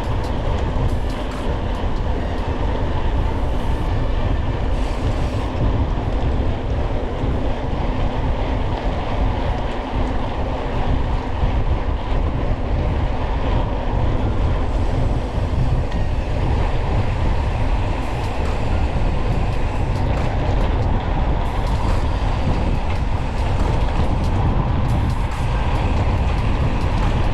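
Mountain bike ridden along a dirt trail, heard through an onboard action camera: steady wind buffeting on the microphone with the bike rattling over the rough ground.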